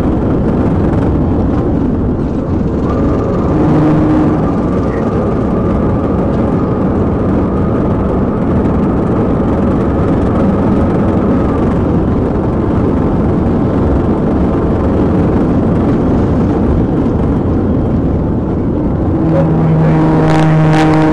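Police patrol car at about 110 mph: steady loud roar of wind, tyres and engine. A brief set of steady tones comes through near the end.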